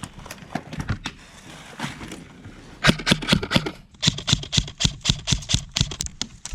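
Lancer Tactical LT-29 Enforcer airsoft electric rifle (AEG) firing. A few scattered sharp clicks, then from about three seconds in a rapid string of shots at about six a second, with a brief break near four seconds.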